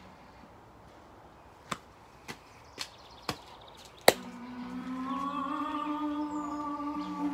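Life-size Halloween animatronic prop: a lull with four light clicks about half a second apart, then a sharp, louder click about four seconds in. The prop's eerie soundtrack of held, layered tones starts up right after it, rising slightly in pitch.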